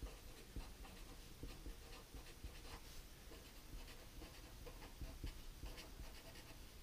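Felt-tip marker writing on paper: faint, irregular scratchy strokes.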